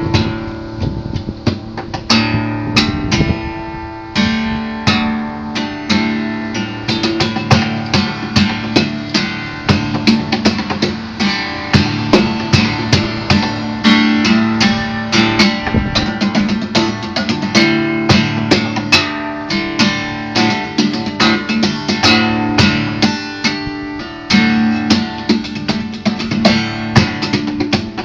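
Guitar being played: a continuous run of plucked notes and strums.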